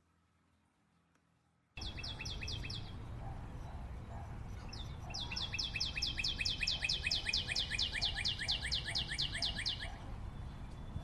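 A bird's rapid trill of repeated high chirps: a short run about two seconds in, then a longer run of about five notes a second from about five to ten seconds in. Under it is a steady low background noise that starts abruptly about two seconds in.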